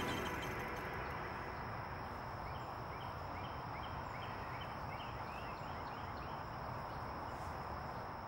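A bird calling: a run of about a dozen short notes, roughly three a second, starting a couple of seconds in and stopping a couple of seconds before the end. Behind it is steady outdoor background noise with a faint constant high tone.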